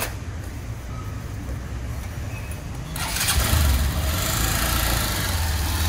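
Hero Xtreme 160R's single-cylinder engine running at idle, getting noticeably louder about three seconds in.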